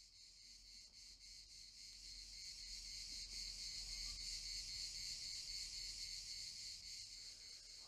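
Cicadas singing: a high, rapidly pulsing buzz that fades in and grows steadily louder.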